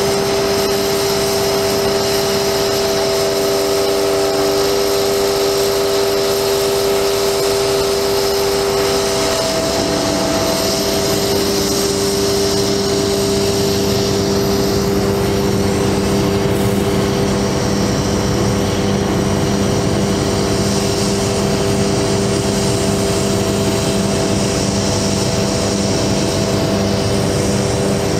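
Truck engine running with the hydraulic pump whining as a Palfinger PK32080 articulating crane is worked. The whine changes pitch about nine to ten seconds in.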